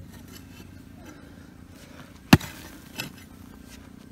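Pick mattock (chibanca) striking hard, stony soil in a trench: one sharp strike about two seconds in, then a lighter one a little later.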